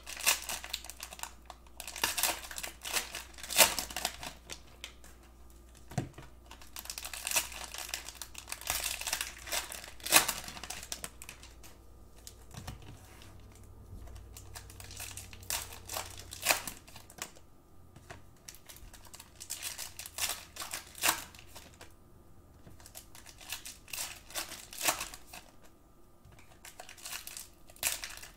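Cellophane wrappers of Panini Mosaic cello packs crinkling and tearing open, with trading cards clicking and sliding against each other as they are sorted. The crackling and clicks are busiest in the first ten seconds, then come more sparsely.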